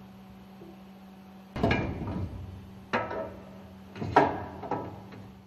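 Two halves of a steel piston rod support being set in place around a piston rod, knocking against each other and the rod: a clunk about a second and a half in, another near three seconds, then two close together around four seconds, over a steady low hum.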